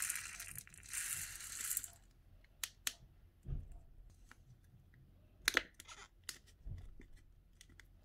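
Small plastic slime beads pouring out of a clear plastic cup into a plastic lid, a steady rush for about the first two seconds. Then scattered light clicks and taps as the plastic cup is handled.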